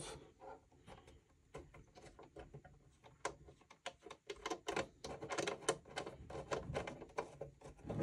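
Faint, quick clicks and light scraping as a case screw is turned out by hand from the back of a Dell OptiPlex 7010 USFF's metal chassis, starting about three seconds in after a near-quiet stretch.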